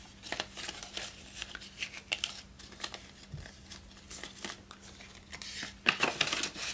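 Paper banknotes rustling and crinkling as they are handled, folded and slid into a cash envelope: light, scattered crackles, busier and louder near the end.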